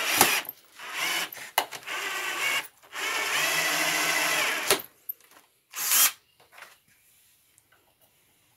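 Makita cordless drill-driver driving a wood screw into a wooden workbench leg: a few short bursts of the motor, then a steady run of nearly two seconds, then one last brief burst as the screw seats.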